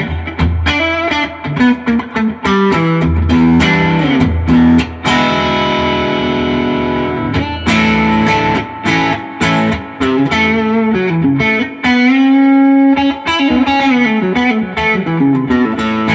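Duesenberg Starplayer Special electric guitar on its bridge pickup split to single coil, through a Fender '65 Reissue Deluxe Reverb, playing picked single-note lines and ringing chords with a bright tone. Several string bends near the end.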